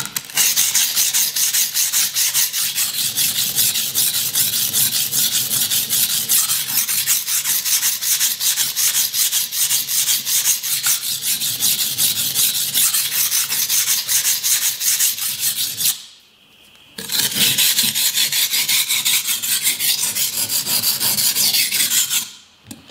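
Steel knife blade scraping back and forth on the coarse side of a cheap wet whetstone in rapid, regular sharpening strokes, with one pause of about a second about three quarters of the way through. The soft, coarse stone is shedding a lot of muddy slurry as it cuts.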